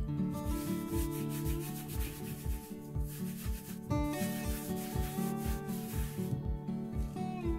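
Paper towel rubbed and pressed by hand over a silicone coaster mould to dab off excess acrylic paint: a papery rubbing noise in two spells, the second starting about four seconds in. Background music with a steady beat plays throughout.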